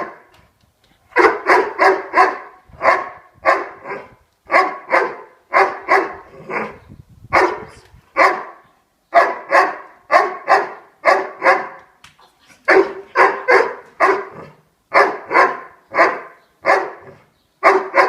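Doberman barking over and over in quick runs of two or three barks, with short breaks between runs. It is frustrated barking at a ball it cannot reach.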